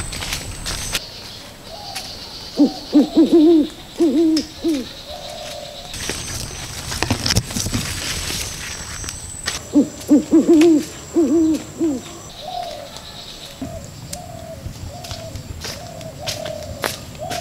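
Owl hooting in two quick runs of calls a few seconds apart, then softer, spaced hoots toward the end, over faint forest ambience with scattered crackles of steps in leaf litter.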